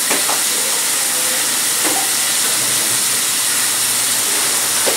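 Chicken and masala frying in a pressure-cooker pan: a constant, even sizzle, with a couple of faint pops.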